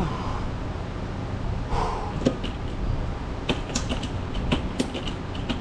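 Scattered light clicks and knocks of hand tools fastening a metal catalytic converter shield to the car's underbody with rivets, over a steady low rumble.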